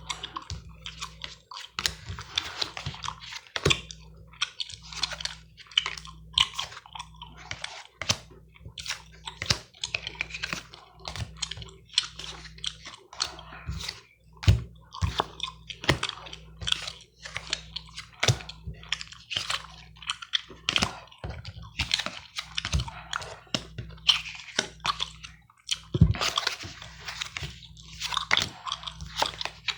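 Close-miked gum chewing: a dense, irregular run of short wet clicks and smacks, several a second.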